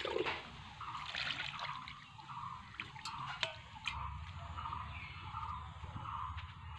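Water splashing and trickling as a steel cup scoops from a plastic bucket and pours over small fish in a steel bowl, with a few sharp metal clinks about three seconds in. A short call repeats about twice a second in the background.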